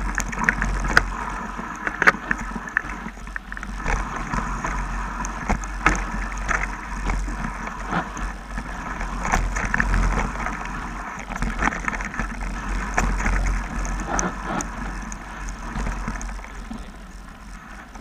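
Mountain bike riding fast down a rough dirt trail: a steady rumble of knobby tyres on dirt and wind buffeting the microphone, with frequent rattles and knocks as the bike hits bumps and stones.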